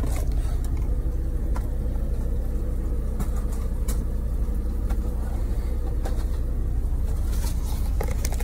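Steady low rumble of a truck's diesel engine idling, heard from inside the sleeper cab, with a few light clicks and knocks of things being handled.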